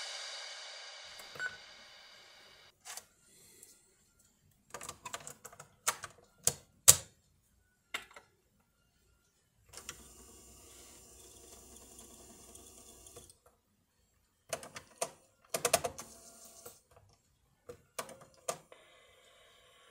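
Plastic clicks and clacks from a Panasonic KX-T4311 answering machine: a microcassette is set into its bay and the control buttons are pressed. Between the clicks, the tape mechanism runs with a steady whirr for a few seconds, and another faint steady run begins near the end. The tail of some music fades out at the start.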